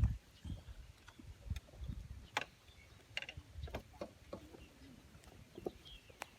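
Wind buffeting the microphone in low gusts, mostly in the first half, with scattered light clicks and ticks and faint bird chirps.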